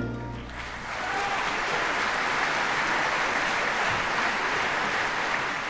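Opera-house audience applauding, swelling in about the first second as the orchestra's final chord dies away.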